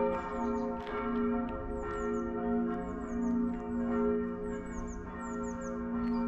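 Church bells pealing, several bells ringing together with a new stroke every second or so and long overlapping hum. A small songbird repeats quick, high descending chirps over them.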